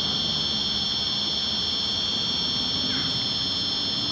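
Steady, high-pitched electric whine from a homemade 1:12 scale RC excavator's motor drives as its boom and arm move, over a constant low noise. A short chirp is heard about three seconds in.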